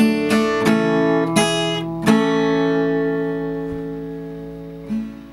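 Acoustic guitar playing the closing bars of a country ballad. Quick picked notes lead into a final chord about two seconds in that rings out and slowly fades, with one short, soft strum near the end.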